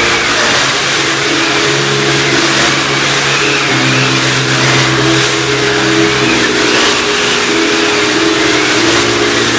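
Circa-1916 Walberg & Auge wind/rain/crash machine cranked to make storm wind: a steady rushing hiss with a whistling tone that rises and falls about once a second. Under it, low held tones step from one pitch to another every second or so.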